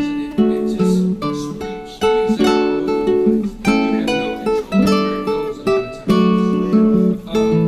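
Acoustic guitar music: plucked notes and chords, each starting sharply and ringing out.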